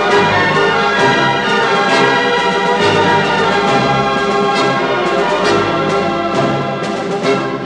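Orchestral background music with prominent brass.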